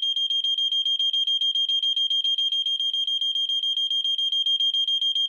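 Gentex hearing-impaired smoke alarm's horn sounding, triggered by its test setting: one continuous high-pitched tone with a fast, even flutter.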